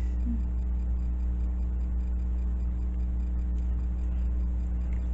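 Steady low hum over faint background hiss, with nothing else happening: room tone.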